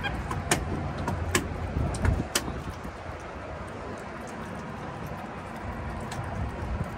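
Steady low rumble of a boat's motor running, with several sharp clicks or knocks in the first two and a half seconds.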